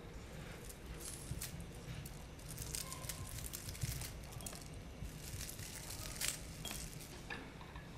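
Dry herb sprigs crackling and rustling as a hand picks through them, a scatter of small crisp crackles over a low steady background hum.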